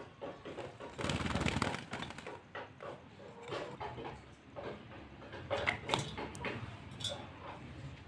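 Hill myna bathing in an enamel pot of water: a loud burst of splashing and wing-fluttering about a second in, then scattered smaller splashes and knocks against the pot.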